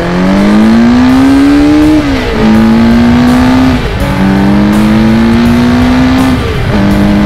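Kawasaki Z1 900's air-cooled inline-four engine accelerating hard through the gears: its pitch climbs, drops at each of three upshifts, and climbs again.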